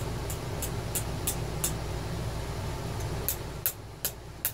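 A series of light, sharp clicks, about three a second, in two runs with a pause between, over a steady low hum. The clicks come from the new battery cell's metal tabs being pressed down flat against the top of the cell.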